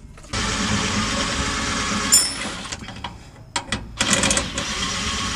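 A power wrench runs in long bursts, driving the 17 mm lower bolt of a truck's rear shock absorber, with a sharp metallic clink about two seconds in.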